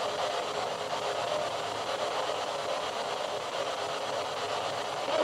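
Steady hiss of radio static from a ghost-hunting spirit box.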